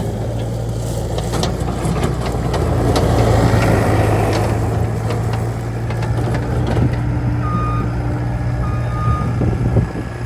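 Case SR210 skid steer loader's diesel engine running steadily, with scattered clanks and knocks from the machine, and its backup alarm giving two short beeps near the end as it reverses.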